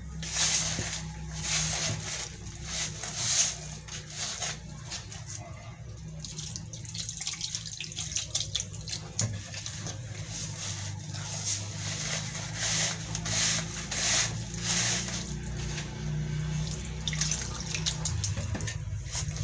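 Wire hand whisk stirring a thick, wet wholemeal wheat-flour batter in a plastic bowl, in repeated irregular wet strokes, over a steady low hum.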